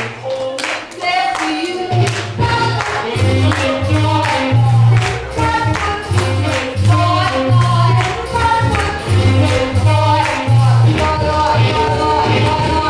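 Swing music with singing over a steady pulsing bass beat and percussion. The bass drops out for about the first second and a half, then comes back in.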